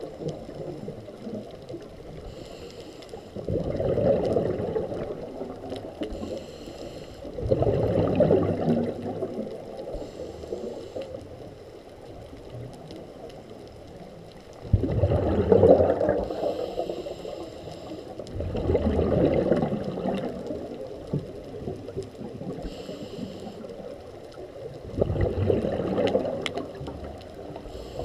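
Scuba breathing through a regulator heard underwater: five slow breaths, each a burst of gurgling exhaust bubbles lasting a second or two, with a fainter hiss of inhaled air between them.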